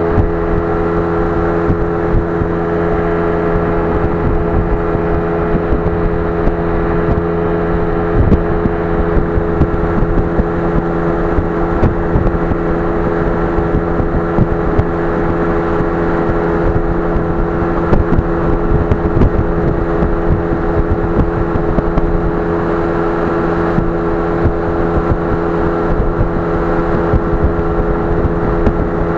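An engine running at a steady speed, its pitch unchanging throughout, over a rushing noise with small irregular flickers.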